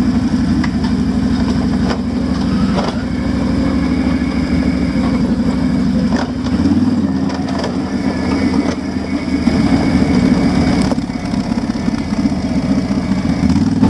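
Automatic ATV's engine running steadily as it is ridden along a trail, its note changing about six and a half seconds in, with a few light clicks.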